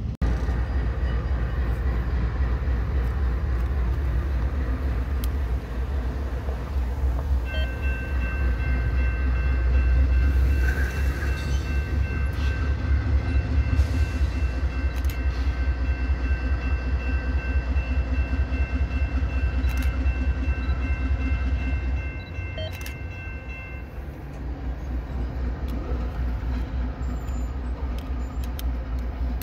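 Approaching Norfolk Southern diesel locomotive sounding its horn in one long steady chord of several notes for about sixteen seconds, beginning about seven seconds in. A loud low steady rumble runs underneath.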